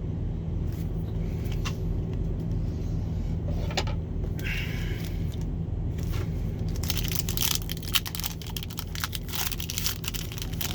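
Foil Pokémon booster pack being torn open and crinkled, with cards shuffled in the hands: a few sharp clicks early, then dense crackling from about seven seconds in.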